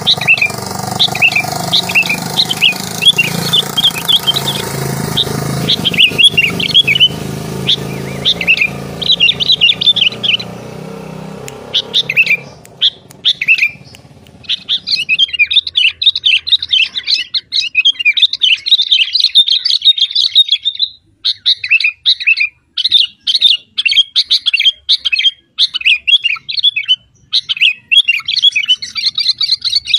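Bird chirping: fast, dense runs of high chirps that keep going in quick bursts. A low steady hum underneath fades out by about halfway through.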